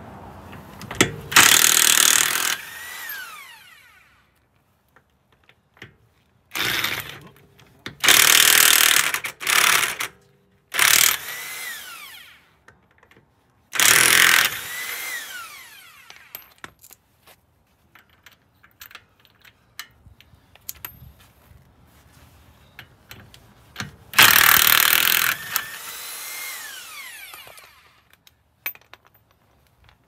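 Corded electric impact wrench hammering on wheel lug nuts in several short bursts, most likely loosening them, with the motor winding down in a falling whine after each burst.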